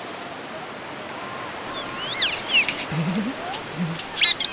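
Steady wash of sea surf, with a small bird chirping in short, sharp, high calls from about two seconds in and again near the end.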